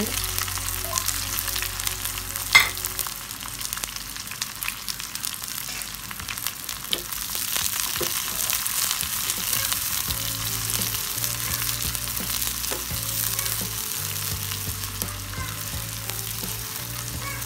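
Sliced shallots, garlic, green chillies and curry leaves sizzling in hot oil in a steel kadai, stirred and scraped with a metal spatula: the sauté stage of a Kerala tempering. A sharp knock about two and a half seconds in is the loudest sound.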